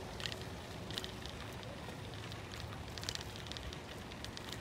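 Bicycle rolling along a dirt-and-gravel track: a steady tyre rumble with scattered short crackles of grit under the tyres, and wind on the microphone.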